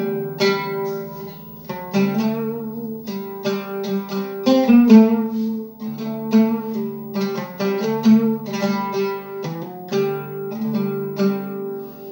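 Oud played solo: a melody of many quickly plucked notes over sustained, ringing low notes.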